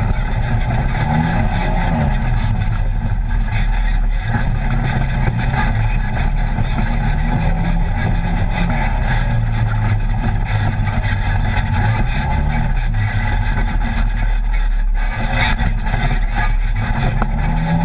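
Side-by-side UTV's engine running under way, heard from inside the open cab, its note rising and falling with the throttle over a steady rushing noise.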